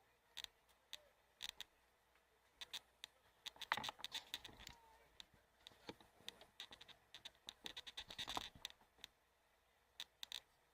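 Faint, irregular clicks and scratching, with denser rustling about four seconds in and again about eight seconds in.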